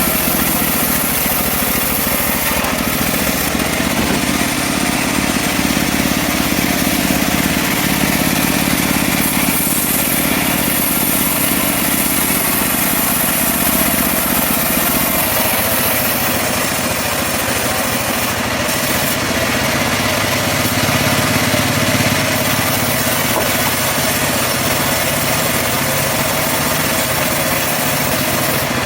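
Engine of a portable bandsaw mill running steadily while sawing mahogany, its low note changing about halfway through.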